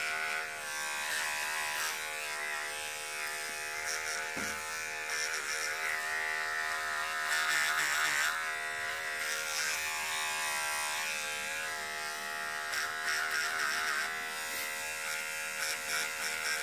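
Electric razor buzzing steadily as it is run over a sock to shave off loose fibres. Its pitch wavers briefly about halfway through.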